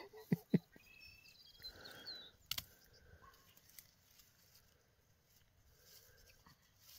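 A few sharp snipping clicks of hand pruners cutting rose canes, three close together in the first second and one more about two and a half seconds in, with faint bird chirps between them.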